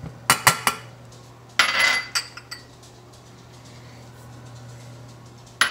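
Small dishes clinking against a stainless steel saucepan as pre-measured spices are tipped into it: three quick taps just after the start, a longer clatter with a ringing note about two seconds in, and another clatter just before the end.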